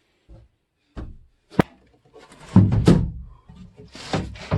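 A hinged course box being handled: a soft knock, a sharp click, then a longer run of scraping and knocking as the lid is moved.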